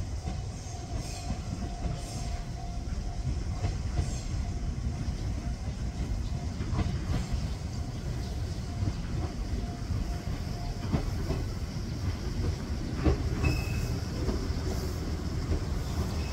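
Meitetsu 3700/3100 series electric train rolling into a station, a steady low rumble with a faint whine in the first part. Its wheels click over rail joints a few times, and there is a brief high squeal near the end.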